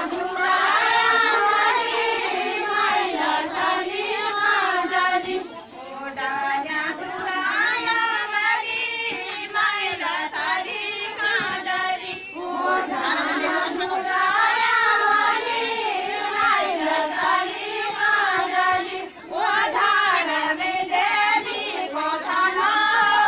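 A group of women singing a Kumaoni jhoda folk song together, in long phrases with short breaks between them.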